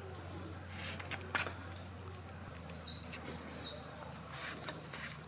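Quiet handling of a live swamp eel on a banana leaf over a bamboo tray: a few soft taps and rustles. Two short high chirps come in the background, about three seconds in and again half a second later.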